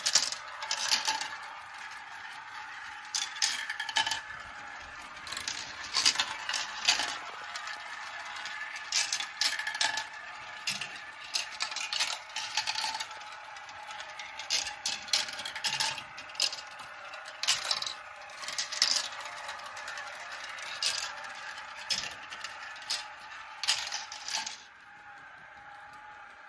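Glass marbles clicking and clattering down a plastic marble run track, in quick irregular clacks that stop shortly before the end.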